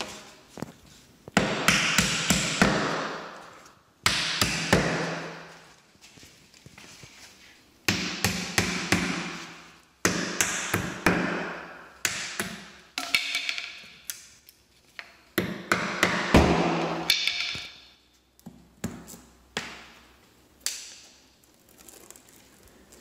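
Hammer striking leftover nails in the door jamb to drive them flush: a dozen or so sharp blows, some in quick runs of several taps, each ringing out for a second or two.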